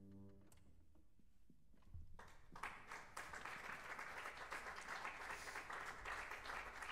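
The last held note of the piece dies away, and after a short hush an audience starts applauding about two seconds in, the clapping continuing steadily.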